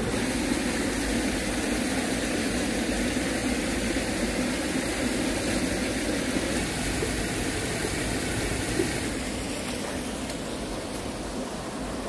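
Steady rushing noise that eases slightly near the end.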